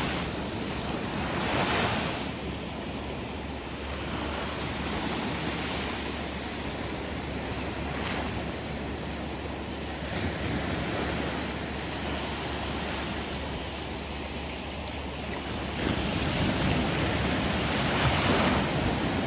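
Sea waves washing onto the shore: a steady rush that swells about two seconds in and again, louder, in the last few seconds.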